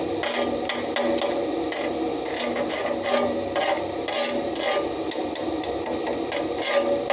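A hammer tapping on steel repeatedly at an uneven pace, several strikes a second, over a steady hum.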